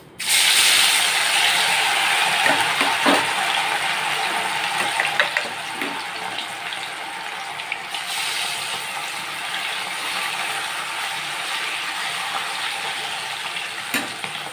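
Marinated chicken 65 pieces going into hot oil for deep-frying: the oil breaks into a loud sizzle that starts suddenly and slowly settles. There are a few light clicks along the way.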